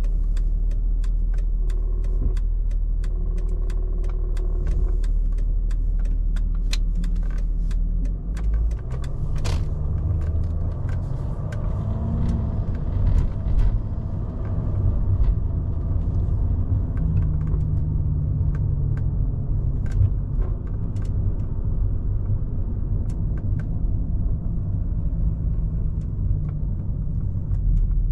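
Mercedes-Benz S320 CDI (W221) driving, heard from inside the cabin: a low engine drone and tyre rumble. About a third of the way in the engine note picks up and rises briefly as the car gathers speed. Light clicks and ticks come through on top.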